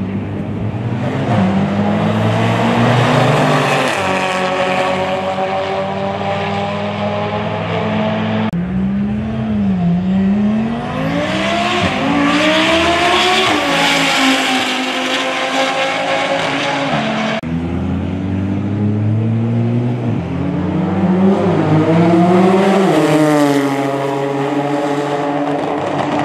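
Tuned high-powered performance cars accelerating flat out in side-by-side roll races, engines revving hard, each engine note climbing through the gears with dips at the shifts. The sound cuts abruptly to a new run about a third of the way in and again about two thirds of the way in.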